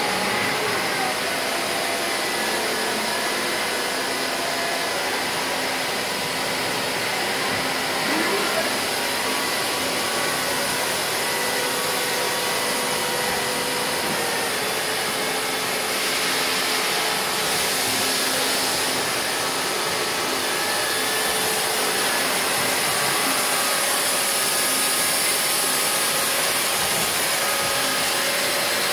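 Steady din of CNC machines running on a machine-shop floor: a continuous hiss with faint whining tones over it, the hiss growing a little louder about halfway through.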